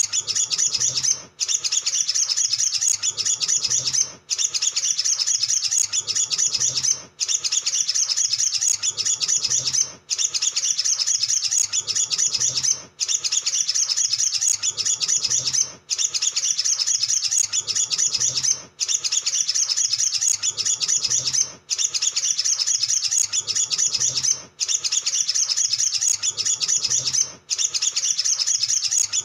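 Male olive-backed sunbird singing a rapid, high, unbroken twittering chatter in bouts of about three seconds, each cut off by a brief pause before the next starts.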